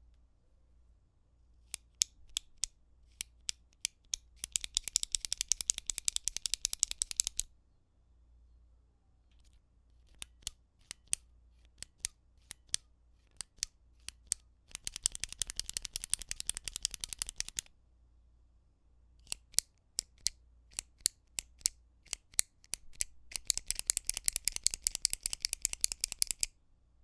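Retractable pen clicking. It makes single sharp clicks a fraction of a second apart, then runs of very fast clicking lasting about three seconds, and this happens three times.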